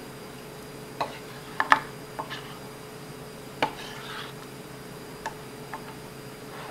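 A ladle skimming scum off simmering broth and knocking against the rim and side of a metal soup pot: about seven irregular sharp clicks and taps, the loudest a close pair about one and a half seconds in, with softer scraping and scooping between.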